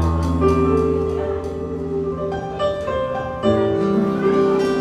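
Piano-sounding keyboard playing the slow instrumental introduction to a ballad: sustained chords over a deep bass note, with a melody moving above them and a new chord struck about three and a half seconds in.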